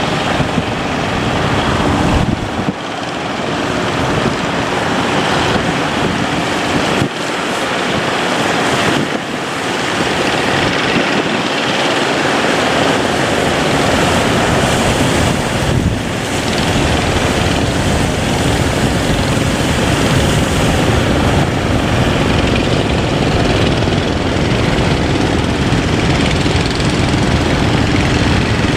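Boat engine running amid a steady rush of waves and wind buffeting the microphone, the low engine rumble growing heavier about halfway through.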